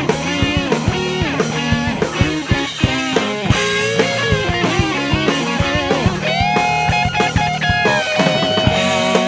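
Instrumental rock band music: electric guitar playing a bending lead line over bass and a drum kit, with a long held guitar note starting about six seconds in.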